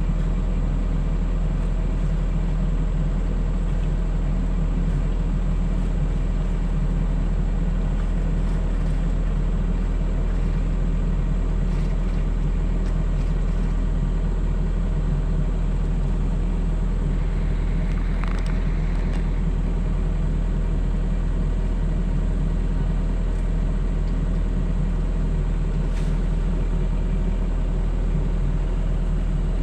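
Mini excavator engine running at a steady drone, with no revving or load changes, and a brief faint scrape about 18 seconds in.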